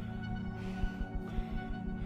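Background music: sustained held tones over irregular low pulses.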